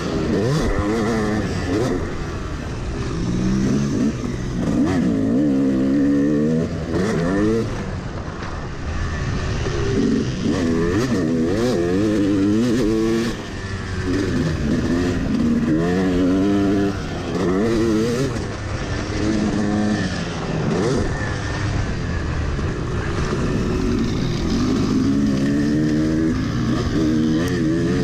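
Yamaha YZ250 250 cc two-stroke dirt bike engine heard from on board while riding, revving up and down over and over as the throttle opens and closes and the rider shifts. There are short drops in the engine note between pulls.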